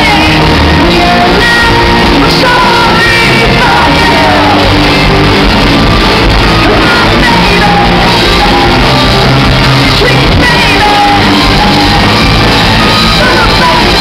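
Loud live rock band playing, with a woman singing and shouting into a microphone over keyboards and electric guitar, in a large hall.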